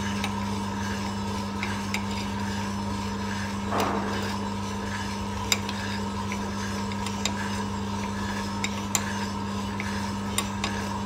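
Small electric drum coffee sample roaster running with a steady hum while the beans tumble in the drum. A metal sampling trier scrapes in and out, with scattered sharp clicks throughout. The roast is close to first crack.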